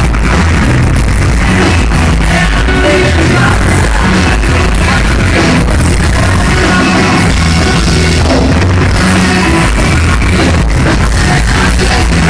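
Live rock band playing loud, with heavy bass and frequent drum hits, in a distorted recording made from the crowd.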